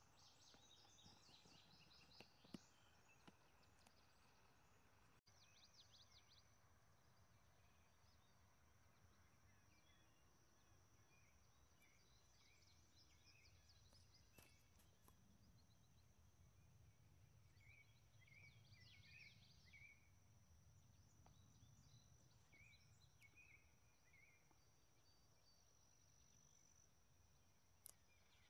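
Faint meadow ambience: small birds chirping in short scattered bursts over a steady high-pitched whine, with a low hum underneath.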